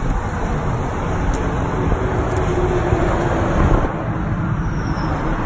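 Steady highway traffic noise from a moving car: tyre, engine and wind noise of cars driving side by side.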